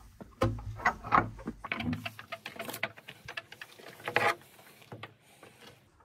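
Irregular knocks, clicks and clatters of someone climbing wooden steps and handling wooden and metal fittings, with rubbing close to the microphone. The loudest clatter comes about four seconds in.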